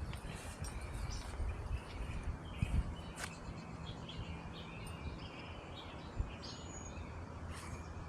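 Small wild birds chirping on and off, with wind rumbling on the microphone during the first few seconds.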